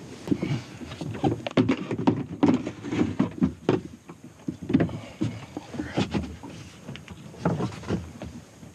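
Irregular knocks, bumps and scrapes of a plastic kayak and its gear being handled, as when launching and climbing in.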